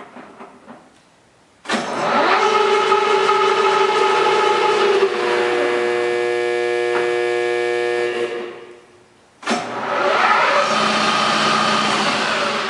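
3 hp LeBlond 13" x 32" engine lathe's spindle and geared headstock running in high range, with a steady many-toned gear whine. It starts suddenly about two seconds in, is braked to a quick stop about eight seconds in, then starts again about a second later. A few light clicks of levers come before the first start.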